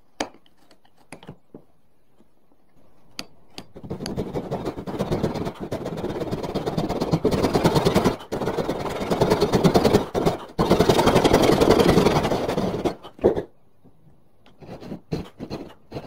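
Wood being worked with a cutting tool: a sharp click and a few light taps, then a dense rasping scrape that runs for about ten seconds, broken twice briefly, before stopping and giving way to more light taps.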